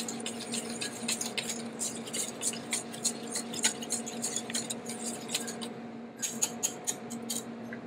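Wire whisk beating heavy cream and egg yolks in a stainless steel bowl, the wires clinking rapidly against the metal. A steady hum runs underneath.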